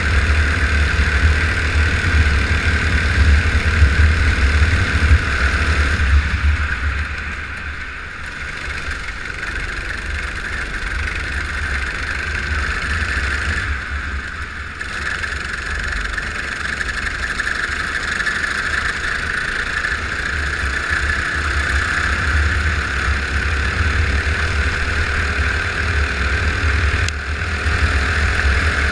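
Go-kart engine under racing load, heard onboard. It eases off about six seconds in, then builds revs again with a slowly rising pitch through the second half.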